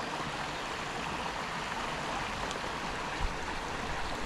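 Small stream running steadily over a rocky riffle, an even rush of water. A brief low bump sounds a little over three seconds in.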